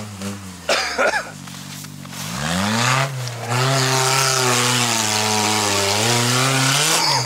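Engine of a prepared off-road vehicle revving up hard about two seconds in and held at high revs for several seconds, with a hiss over it, then dropping back near the end.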